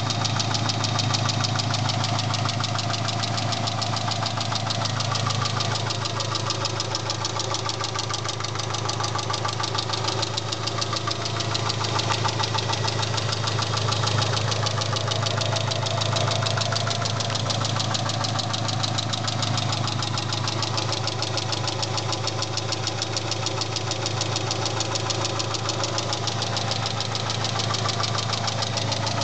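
Mitsubishi Eclipse engine running steadily at an even speed with a fast, continuous ticking and knocking from inside the engine, a noise whose cause the owner does not know.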